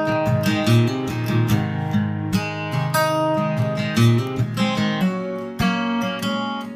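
Background music: acoustic guitar strumming and picking.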